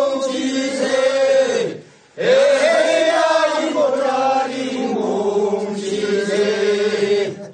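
Korean farmers' rice-seedling pulling work song (모찌는 소리), its refrain chanted by a group of voices in a drawn-out unison, with a short pause for breath about two seconds in.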